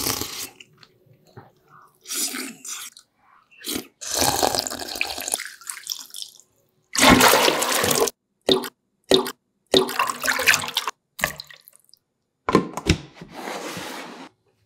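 A string of short, separate kitchen sounds with gaps between: a slurp of soup from a spoon at the start, and water poured splashing into a clear plastic tub about halfway through, the loudest of them.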